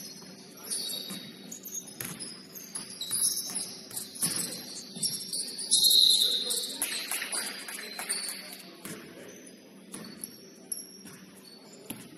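Sounds of basketball play on a court: rubber-soled sneakers giving short, high squeaks on the floor, with scattered sharp ball bounces. The loudest squeal comes about six seconds in.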